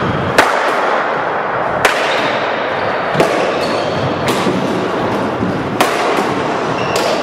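Racquetball rally: about six sharp cracks of racquets striking the hollow rubber ball and the ball hitting the walls and floor, every second or so, ringing around the enclosed court.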